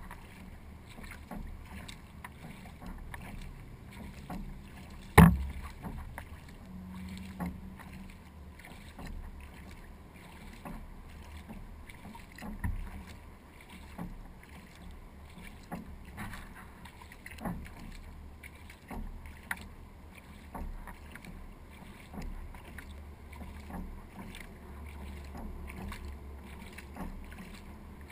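Kayak paddling on calm water: a steady rhythm of paddle strokes and drips, with light knocks on the hull, and one sharp, loud knock about five seconds in.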